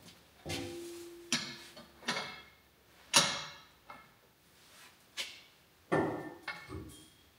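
A series of separate metal clicks and knocks from a long wrench being handled and set on the central hub bolt of the front wheel, the loudest a little after 3 seconds in.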